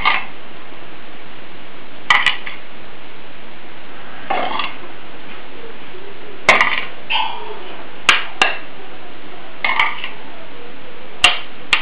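Serving utensil clinking and scraping against a stainless steel Zepter pan and a ceramic bowl as stewed cabbage is spooned out: about eight short, sharp clinks and scrapes at irregular intervals, over a steady hiss.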